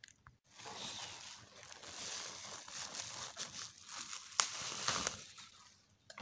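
Plastic bubble-wrap bag crinkling and rustling as it is handled and pulled off a PLC unit, with a few sharp crackles; it starts about half a second in and dies away near the end.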